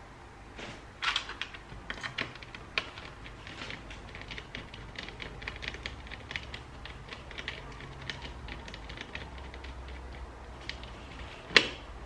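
Light, irregular clicking and ticking of a small screwdriver working a screw into a ThinkPad T430's display hinge, with one sharper click shortly before the end.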